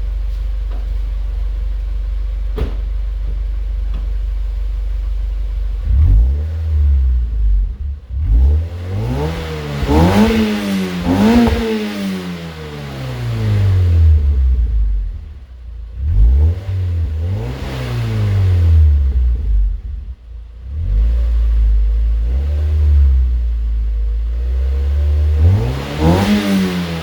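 Mazda Miata NC's four-cylinder engine, warm, breathing through a Yonaka aftermarket exhaust. It idles steadily for about six seconds, then is revved repeatedly, the pitch climbing and falling back each time, with the highest rev near the end.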